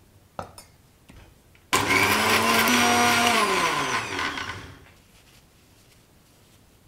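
Indian mixer grinder (mixie) grinding a wet paste of roasted spices, coconut and roasted gram with a little water. After a click from the jar, the motor starts suddenly about two seconds in, runs steadily, then winds down with falling pitch once switched off.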